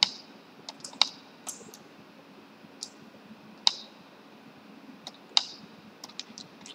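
Computer mouse buttons clicking: a dozen or so short, sharp clicks at irregular intervals, the strongest near the start, about a second in and a little before the middle.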